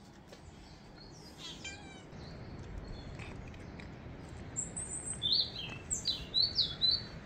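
Small birds chirping: a quick run of short, high, gliding notes in the second half, over steady outdoor background noise.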